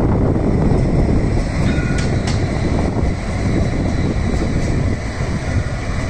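Edinburgh Trams CAF Urbos 3 tram passing close by, its wheels running on the rails with a steady low rumble, and a couple of sharp clicks about two seconds in. Wind is buffeting the microphone.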